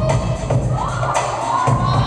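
Dance music with a heavy bass beat, drum strikes and a melody line, with a crowd cheering and shouting over it.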